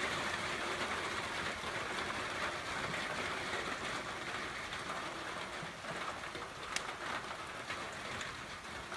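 A light downpour: steady rain falling, with one sharp tick a little past two-thirds of the way through.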